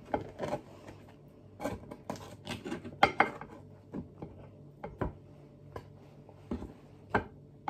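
Nylon slotted spatula scraping and knocking against a metal pan while food is lifted out: an irregular run of clicks and short scrapes, loudest about three seconds in.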